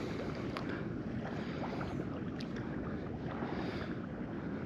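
Steady wind and water noise with the wind buffeting the microphone, and two faint ticks, one about half a second in and one about two and a half seconds in.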